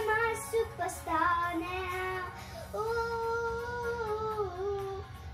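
A young girl singing, with short phrases first, then one long held note from about three seconds in that wavers a little before it ends.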